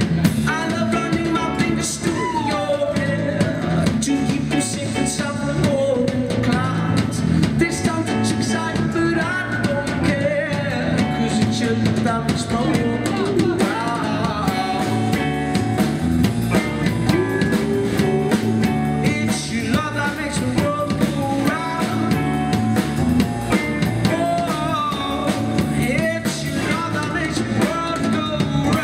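Live rock band playing a song: electric guitar, bass guitar and drum kit, with a man singing over them.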